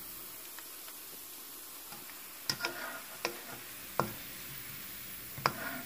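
Sliced onions frying in hot oil in a wok with a steady high sizzle. From about two and a half seconds in, a metal wire skimmer and wooden spoon knock and scrape a few times as the browned onions are stirred and lifted out.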